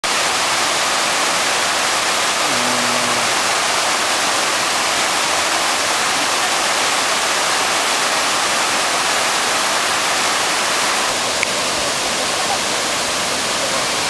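Wide, low waterfall pouring over a rock riverbed: a steady, loud rush of falling water, which drops a little in level about eleven seconds in.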